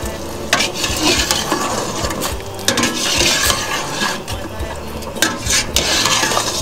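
A ladle stirring pork bones in a stockpot of simmering broth. It scrapes and clinks against the steel pot in three short bouts of about a second each.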